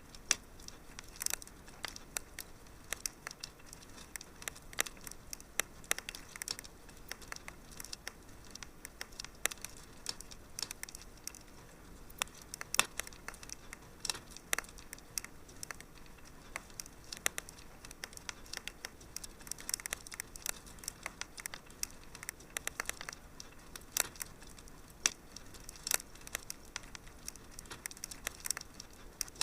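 Wood fire crackling in a fireplace: irregular sharp pops and snaps, some dense clusters and some louder single cracks, over a soft steady hiss.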